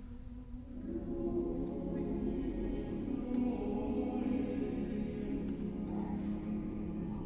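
Mixed chamber choir singing unaccompanied. A soft held chord swells about a second in, as more voices enter, into a fuller sustained chord.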